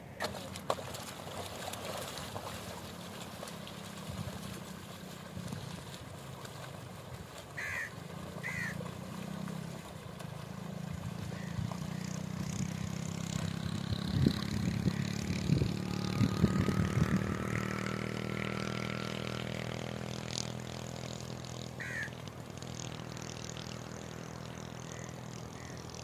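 A motor engine droning steadily, swelling louder through the middle and then easing off, with a few sharp knocks around the loudest part and a few short bird chirps.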